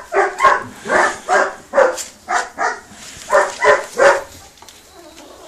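A puppy barking over and over, about ten short barks in quick succession, stopping about four seconds in.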